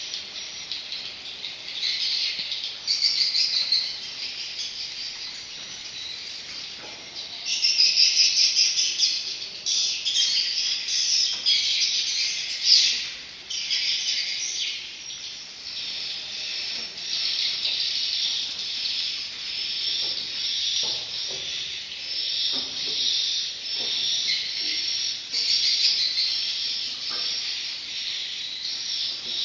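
Swiftlet lure call: a dense run of fast, high twittering chirps, louder in patches, of the kind played through speakers in swiftlet houses to draw edible-nest swiftlets in to roost.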